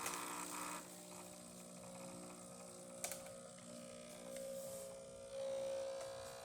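Breville Barista espresso machine's pump humming steadily as a test shot starts, with a single sharp click about three seconds in and the tone growing louder near the end as pressure builds.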